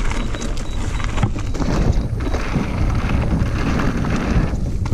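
Mountain bike riding fast down a loose gravel and dirt trail: tyres crunching over stones, with knocks and rattles from the bike over bumps, under wind rumbling on the microphone.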